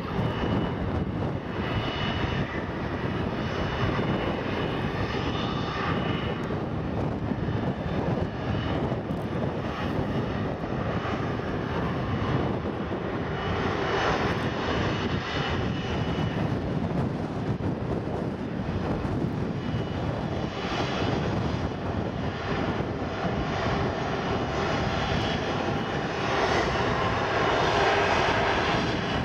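Airbus A330-243's Rolls-Royce Trent 700 turbofan engines running as the airliner rolls along the runway after landing: a steady jet rumble with a faint high whine, growing a little louder near the end as the aircraft nears.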